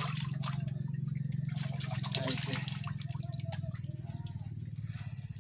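Water dripping and trickling onto the wet ground around freshly caught fish, in scattered small drips and clicks over a steady low hum.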